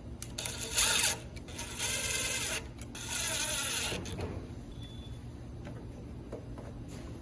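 Small handheld power driver whirring in three short bursts of about a second each, its pitch bending as it spins up and down, while the mower's air filter base is fastened back on.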